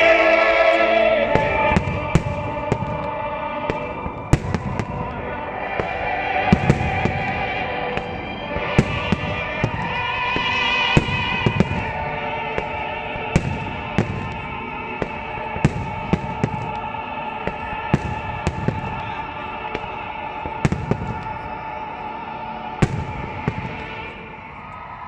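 Aerial firework shells bursting with sharp bangs, about one every one to two seconds, over the display's accompanying music, which includes a singing voice.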